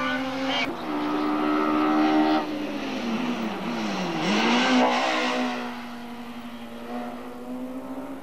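Group 5 BMW race car's two-litre four-cylinder M12/7 engine running at high revs. About halfway through, the note drops and climbs back up as the driver lifts and gets back on the throttle, then holds steady.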